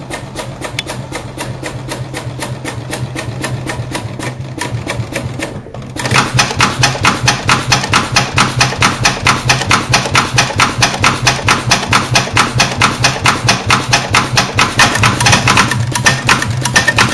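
Industrial post-bed sewing machine stitching leather in an even, steady rhythm over a low motor hum. It gets much louder about six seconds in.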